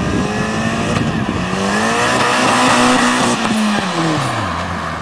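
Vauxhall Corsa D SRi Turbo's engine through a Cobra Sport 3-inch stainless turbo-back exhaust with de-cat and resonated centre section, driving past. The revs climb, hold, then fall away about four seconds in as the throttle is lifted.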